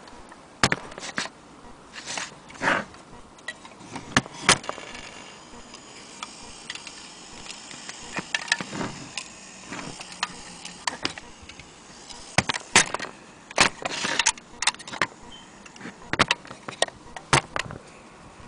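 Old French carriage clock being handled: irregular sharp metallic clicks and knocks at uneven intervals.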